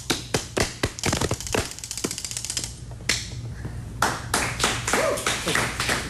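Body percussion: hands slapping and tapping on the body in sharp, separate strikes, breaking into a very fast roll that stops about three seconds in. About four seconds in, clapping starts.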